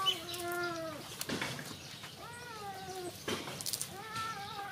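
A cat meowing three times, each meow about a second long with a slight rise and fall in pitch.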